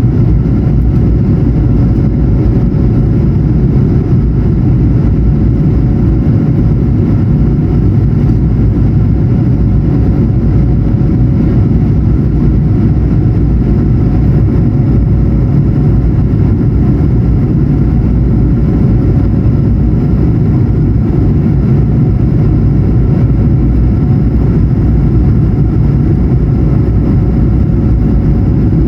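Steady cabin noise inside an Airbus A220-100 on descent: a deep, even rush of airflow and the hum of its Pratt & Whitney PW1500G geared turbofans, with a faint steady tone running through it.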